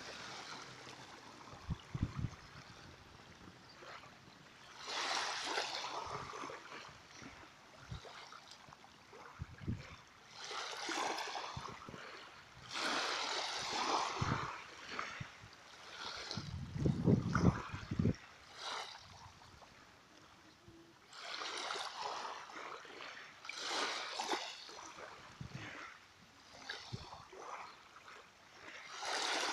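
Small waves lapping and splashing, coming in swells every few seconds, with a few short low thumps.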